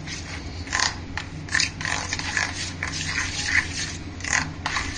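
Hands mixing and squeezing a crumbly stuffing of cream, milk powder and chopped dry fruits in a steel bowl, with irregular rubbing and scraping strokes of fingers and food against the metal.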